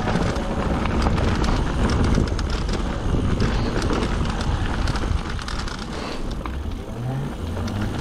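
Mountain bike ridden fast down a dirt trail: wind buffeting the microphone over the hiss of tyres on dirt, with frequent small rattles and knocks from the bike over bumps.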